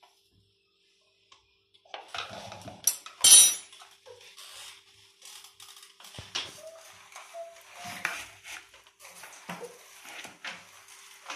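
Kitchen utensils clatter and knock, starting about two seconds in, with one loud clack a little after. Then a plastic spoon scrapes and tosses raw shredded cabbage and vegetables in a plastic bowl, mixing spring roll filling.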